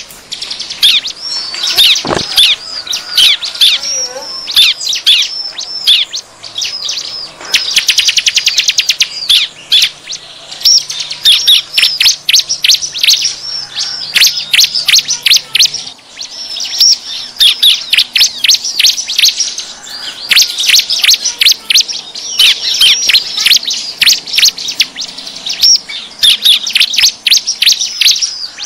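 Bar-winged prinias (ciblek) calling noisily: rapid runs of sharp, high chirps, one after another, broken by fast rattling trills, as in a ciblek lure call.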